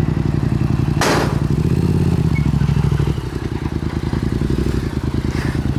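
Yamaha FZ-07's parallel-twin engine, fitted with an aftermarket Yoshimura exhaust, running at low speed as the motorcycle rides up onto a trailer. There is a sharp clatter about a second in, then the revs rise briefly and settle back to a steady, pulsing idle.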